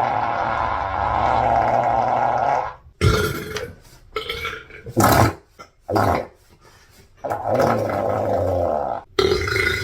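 A girl belching loudly over and over. A long drawn-out burp ends about three seconds in, four short burps follow, then two more long burps near the end.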